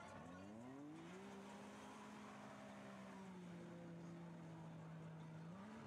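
Side-by-side UTV engine, very faint, revving up in the first second, holding steady, easing off slightly, then rising again near the end.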